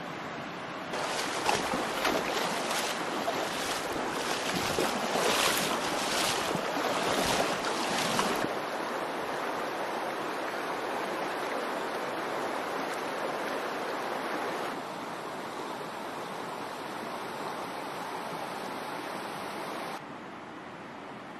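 A river rushing over a stony bed, a steady broad hiss of water. It is louder and more uneven for the first several seconds, then steadier and quieter, dropping down in steps toward the end.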